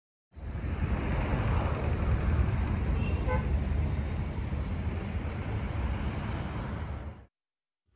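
Town traffic noise, a steady low rumble, with a faint short car-horn toot about three seconds in. It starts abruptly and cuts off suddenly near the end.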